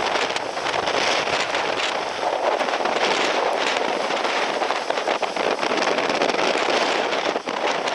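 Typhoon storm wind gusting hard across the microphone, a loud rough rushing with constant crackling buffets.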